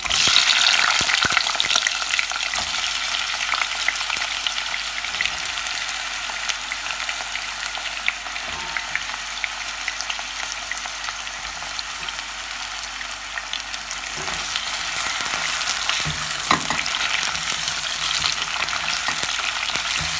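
Sweet potato slices sizzling as they go into hot ghee in a non-stick pan. The sizzle is loudest about when they drop in and eases off, then picks up again near the end as the slices are stirred, with scattered taps and scrapes of a plastic spatula.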